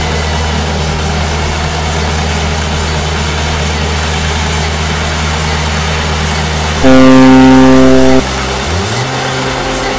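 A steady low hum, then about seven seconds in a loud electronic buzzer tone sounds for just over a second and cuts off. It marks the interval timer running out. A lower tone then glides upward.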